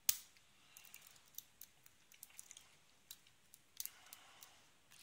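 Lock pick and tension wrench working the pins of a Chubb 5-pin brass padlock during single-pin picking: one sharp click right at the start, then scattered faint ticks and scratches of the pick inside the keyway, with a few louder clicks a little before the end.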